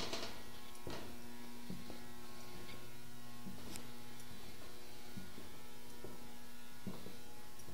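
A steady electrical hum, with a few soft knocks scattered through it.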